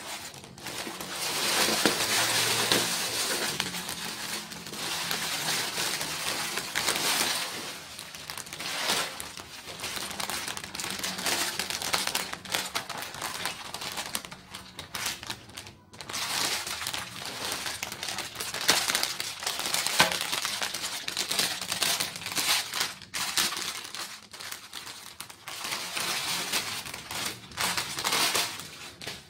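Plastic packaging crinkling and rustling as hands unwrap a black plastic mailer bag and handle clear plastic-wrapped sponge brushes, in loud uneven spells with a few short pauses.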